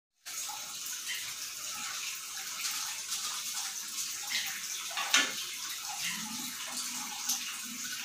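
Water pouring steadily from a pipe outlet into a fish pond, a continuous splashing rush, with one brief sharp knock about five seconds in.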